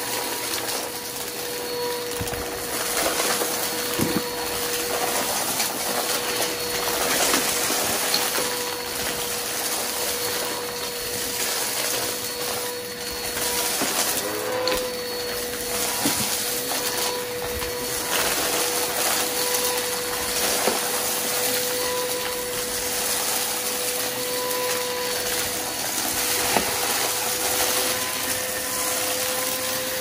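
Vacuum cleaner running steadily with a constant motor whine, with scattered small clicks and crackles throughout.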